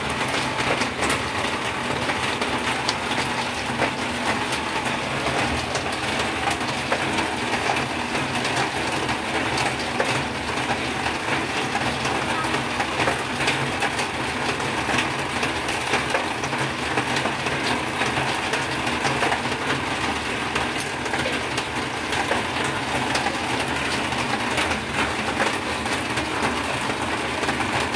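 Oil sizzling and crackling steadily as turon (banana spring rolls) deep-fry in a pan.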